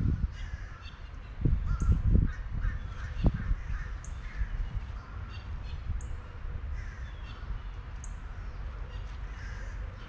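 Background bird calls: short harsh calls repeating throughout, with a thin high chirp about every two seconds. Low rumbling bursts on the microphone come in the first few seconds.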